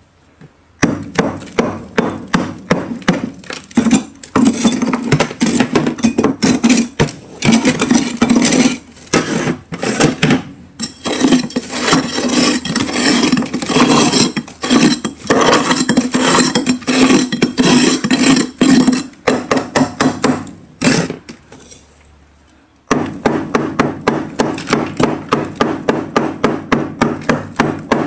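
A handheld scraper chipping and scraping thick frost off a freezer's walls in rapid repeated strokes, several a second, with a pause of about two seconds late on.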